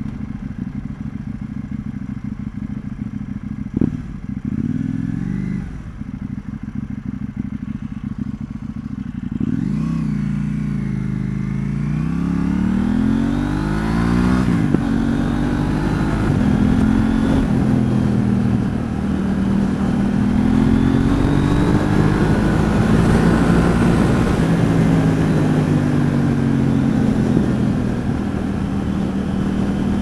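2019 KTM 790 Duke's parallel-twin engine through a Mivv Delta aftermarket exhaust, heard from inside the rider's helmet. It runs low and steady at first, with a short blip of revs about four seconds in. From about ten seconds in it pulls away, the revs climbing and dropping back several times as it shifts up, then rising and falling on the throttle, with wind rush building as speed rises.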